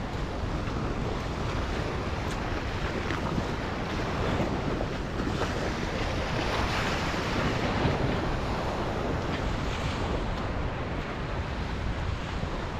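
Small waves washing onto a sandy shore, with wind buffeting the microphone as a steady low rumble.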